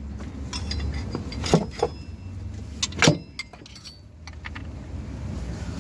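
Hand tools clinking against steel suspension parts: a few sharp metallic knocks with short ringing, over a steady low hum.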